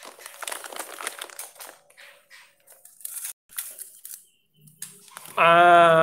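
Kraft-paper stand-up pouches of bird-feed pellets crinkling and rustling as they are handled, dense for about two seconds, then a few scattered light clicks and rustles.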